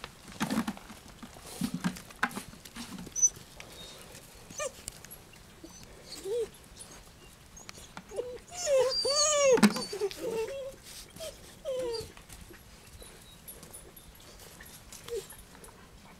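German Shepherd puppies whining in short, scattered calls, with one longer whine about nine seconds in that rises and falls in pitch and is the loudest sound. A few knocks and scuffs come in the first three seconds.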